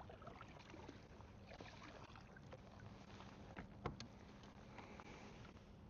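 Near silence: faint small knocks and ticks of handling on a kayak, with one sharper click just before four seconds in.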